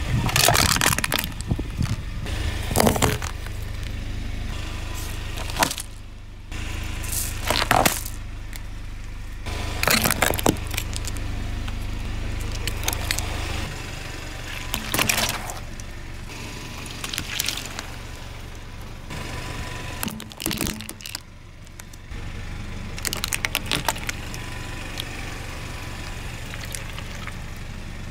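A car tyre rolling slowly over objects and crushing them one after another, with repeated sharp crunches and cracks over a steady low engine hum. Near the start it flattens a crumpled aluminium drink can, which crackles under the tyre.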